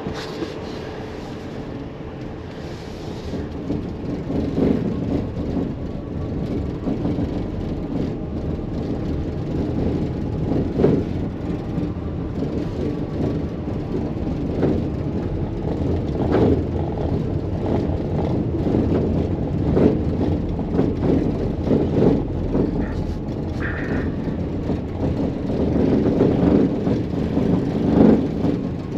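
Cabin noise in a Maxus e-Deliver 7 electric van driving over cobblestones at about 35 km/h. A steady tyre rumble is broken by frequent knocks and rattles, which grow louder after a few seconds. The driver puts the rattling down to the rear cargo body's badly fitted plastic panels.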